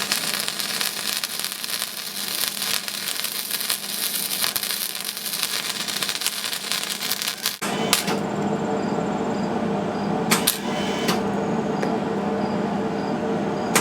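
Hobart MIG welder running flux-core wire, its arc crackling steadily for about seven and a half seconds and then cutting off suddenly as the wire spool runs out. After that the welder hums, with a few sharp clicks.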